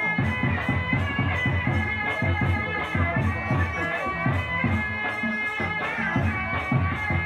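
Traditional Muay Thai ring music (sarama) for the wai kru: a reedy, oboe-like pipe plays a winding, wavering melody over a quick, steady hand-drum beat.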